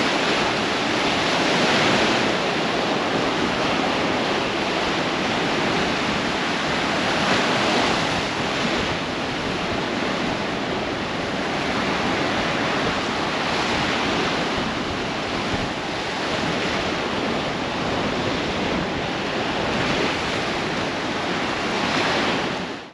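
Baltic Sea surf: a steady wash of waves, swelling and easing every few seconds, which cuts off abruptly at the end.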